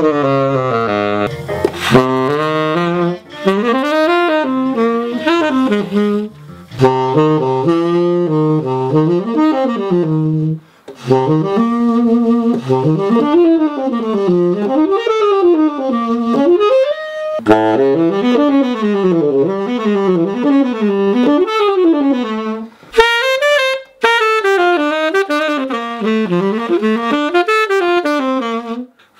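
Tenor saxophone played solo: fast jazz-style runs rising and falling through the range, in phrases broken by short pauses.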